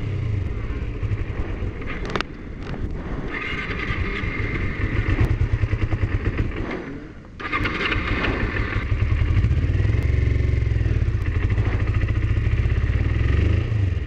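Kawasaki Ninja 250R's parallel-twin engine running while the bike is ridden, pulling steadily, easing off briefly about seven seconds in, then pulling again. The rider thinks it sounds sick, in need of a tune-up.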